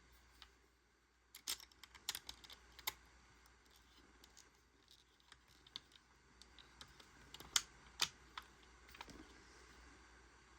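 Light plastic clicks and taps of action-figure parts being handled and pressed into place, irregular and faint, with a cluster of clicks about a second and a half in and two louder clicks about three-quarters of the way through.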